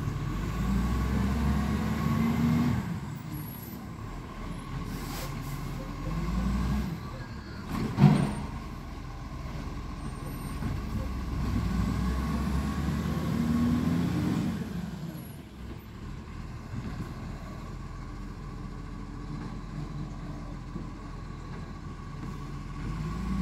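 Garbage truck's engine running a short way off, revving up and settling several times as it works along the street. About eight seconds in there is a short, sharp burst, the loudest sound.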